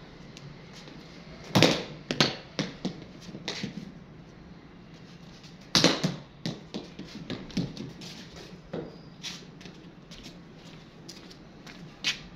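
A cricket bat blocks a ball twice with a sharp knock. After each block comes a run of smaller, fading taps as the ball bounces and skitters across a concrete floor.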